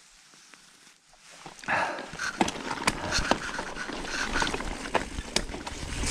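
Trek Fuel EX 9.8 29 full-suspension mountain bike riding a wet, rooty trail. The tyres make a steady rolling noise, with many sharp clicks and knocks from the drivetrain and frame over the roots. It starts after a quiet second or two.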